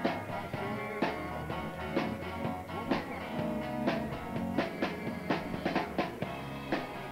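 Background music: guitar and drums playing in a rock-and-roll style with a steady beat.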